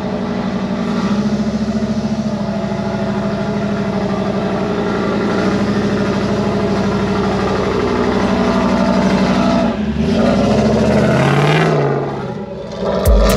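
Jeep Wrangler JK engine running steadily under low-speed load as it crawls up a rocky dirt trail, revving up and down a couple of times near the end.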